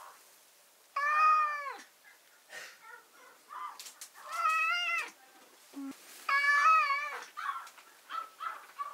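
Persian cat meowing from inside a wire cage: three long, drawn-out meows, the middle one rising in pitch, with fainter short sounds between them. The cat is calling to be let out of the cage.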